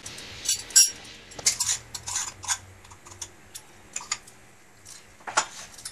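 Stainless steel parts of a hand-cranked sev press clinking and tapping against each other as they are greased and handled: a dozen or so short, uneven metallic clicks.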